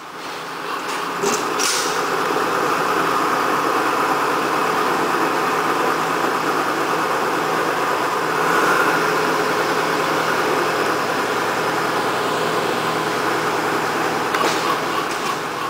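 Small narrow-gauge park-railway diesel locomotive running, its engine rising over the first second and then holding steady as it drives along the track, with a few clanks from the rails about a second in and near the end.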